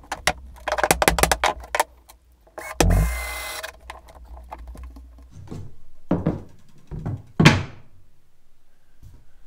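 Rapid clicking, then a cordless drill running briefly about three seconds in as it drives a finish screw into the pine floorboards. After it come several dull knocks on the wooden floor, the loudest near the two-thirds mark.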